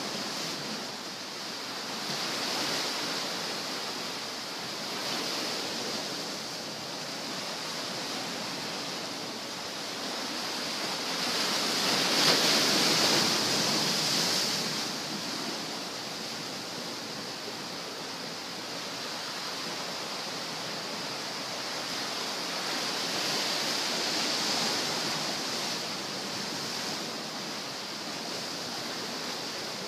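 Sea surf washing onto the shore: a steady rush that swells and ebbs every few seconds, with one louder surge about twelve seconds in.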